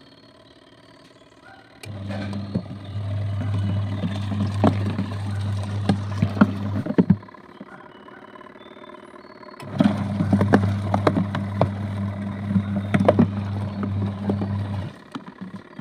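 Adler AD8051 mini washing machine's wash motor running with a steady low hum, water and laundry sloshing and knocking in the tub. It runs in two bursts of about five seconds, stopping between them and near the end: the gentle stop-start agitation of a wool cycle.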